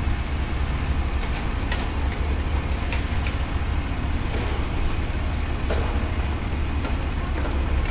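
Caterpillar 320D hydraulic excavator's diesel engine running steadily under working load as the machine swings and loads soil, a low steady drone with a few brief clanks scattered through it.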